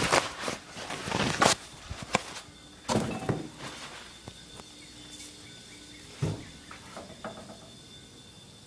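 Handling noise: a few sharp knocks and clatters as things are moved and the phone is carried about, loudest about a second and a half in, around three seconds in and again about six seconds in, then it settles quieter.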